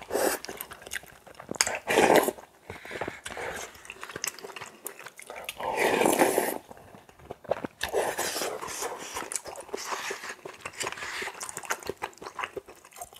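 Close-up eating sounds of spicy cup ramen mixed with rice and egg yolk: irregular chewing and mouthfuls, with louder bursts about two and six seconds in and a few sharp clicks.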